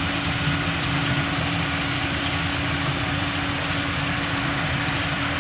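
Heavy diesel engine of earthmoving machinery running steadily at an even speed, a dense low rumble with a steady hum above it.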